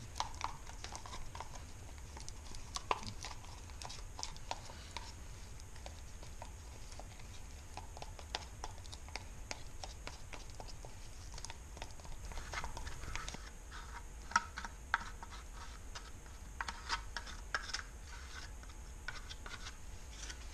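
A wooden stir stick scraping and clicking in a small cup as a mixture is stirred, with irregular light taps and scrapes that come thicker and faster in the second half. A steady low hum runs underneath.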